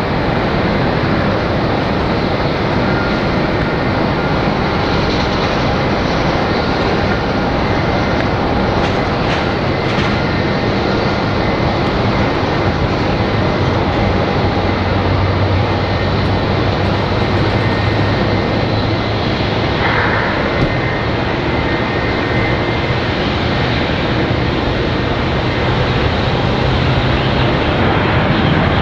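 Airbus A320neo airliner coming in to land, its Pratt & Whitney geared turbofan engines making a loud, steady jet noise, with a low hum line appearing about halfway through.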